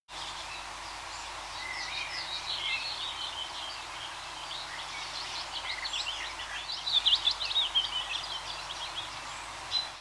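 Budgerigar chirping and chattering in short, quick runs over a steady background hiss, busiest about seven to eight seconds in.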